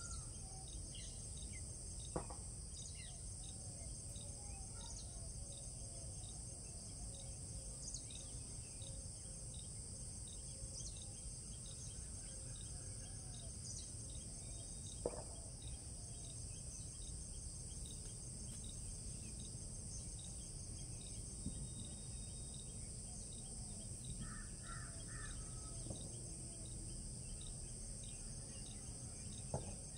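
Outdoor ambience of a steady insect chorus: a continuous high buzz with a regular chirping pulse running through it. Birds call now and then, including a quick three-note call near the end. A low background rumble and three sharp clicks are also heard.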